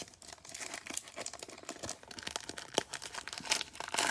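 Foil wrapper of a Panini Mosaic football card pack crinkling as it is torn open by hand: a run of irregular crackles, the sharpest about three seconds in and near the end.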